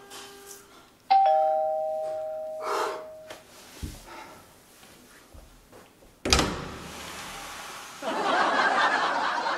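Two-tone ding-dong doorbell chime about a second in: a higher note, then a lower one, each ringing out for about two seconds. About six seconds in comes a sharp knock, and near the end a louder, rough noise takes over.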